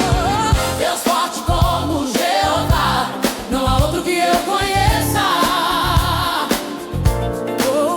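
Groove soul gospel music: a steady beat of drums and bass under a sung melody with choir-like backing voices.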